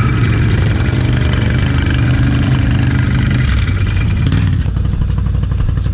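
Can-Am Renegade ATV's V-twin engine running steadily at low speed, then dropping to idle about four and a half seconds in.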